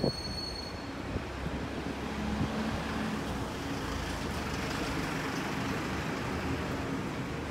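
Road traffic going by on a city street, a steady hum of vehicles that grows louder about two seconds in.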